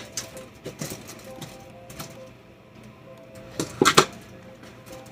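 Thin plastic carrier bag rustling and takeaway food containers clicking and knocking as a meal is unpacked, with a louder cluster of crinkles and clicks near the end. Faint background music runs underneath.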